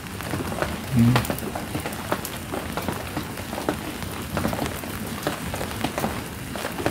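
Steady rain falling, with many separate drop hits ticking irregularly through it, and one brief low hum about a second in.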